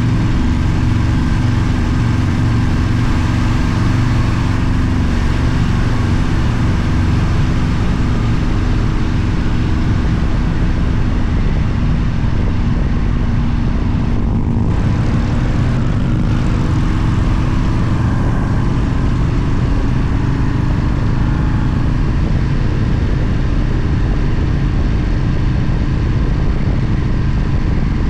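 Motorcycle engine running steadily, a constant low drone with no change in level.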